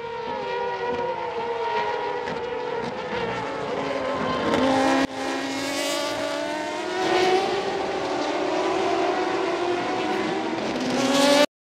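Turismo Carretera race car engines running hard as the cars pass, several engines at once, their pitch gliding up and down. The sound breaks sharply about five seconds in and cuts off abruptly near the end.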